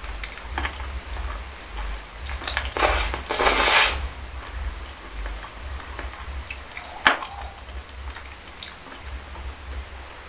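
Close-miked wet chewing of soft, sauce-coated boneless chicken feet, with a loud wet squelch about three seconds in and a sharp click near seven seconds.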